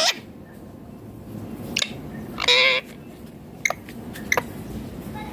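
Indian ringneck parakeet calling: a few short sharp chirps and, about halfway through, one longer wavering call.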